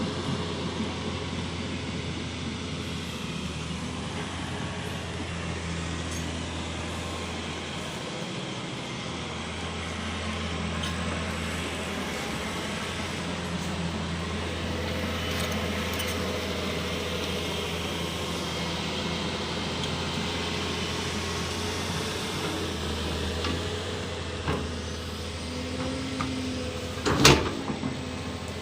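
Volvo EC330B LC excavator's diesel engine running steadily under working load, with the hum of its hydraulics, and a sharp knock near the end.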